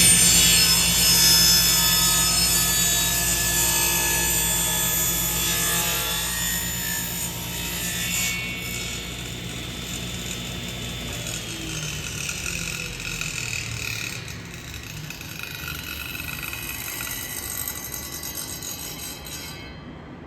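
Power saw cutting wood, growing gradually quieter, with a whine that slides down in pitch partway through; it cuts off abruptly near the end.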